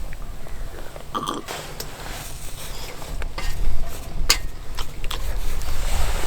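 Scattered clicks and knocks of firewood being handled at a small wood stove, over a low rumble. The damp wood is struggling to catch.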